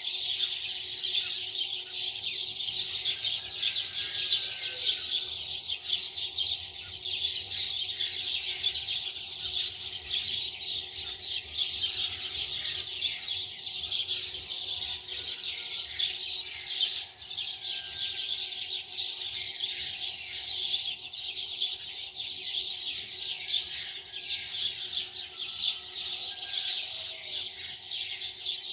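Many small birds chirping continuously in a dense, busy chorus, with a faint steady hum underneath.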